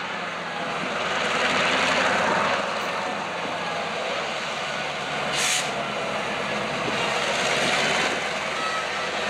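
EMD GP38-2 diesel locomotive's 16-cylinder 645 engine running as it pulls covered hopper cars slowly past, with a brief hiss about five and a half seconds in.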